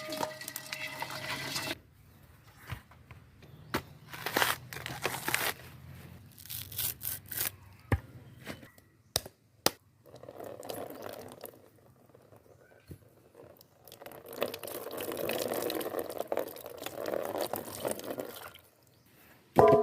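Kitchen handling sounds while crabs are prepared for cooking: scattered knocks, clicks and rustling with splashes of liquid, and a steadier hiss lasting several seconds in the second half.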